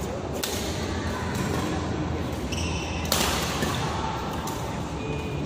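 Badminton doubles rally: rackets striking the shuttlecock with sharp knocks, one about half a second in and a louder one about three seconds in. Short high shoe squeaks on the court floor come between them.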